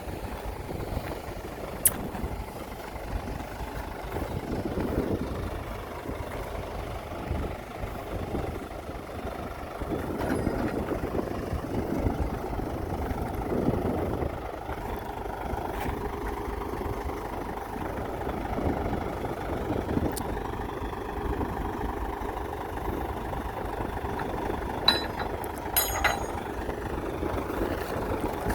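Heavy diesel construction machinery running, the engine noise swelling and easing under load, with a few sharp metallic knocks about two seconds in and again near the end.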